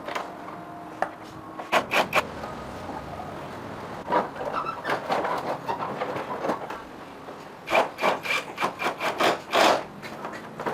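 Scraping and rubbing strokes of hand-tool work, likely on motorcycle parts: a few strokes about two seconds in, scattered ones in the middle, then a quick run of about eight strokes near the end.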